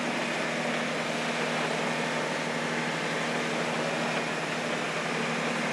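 Boat engine running steadily with a low hum under a constant rush of wind and water.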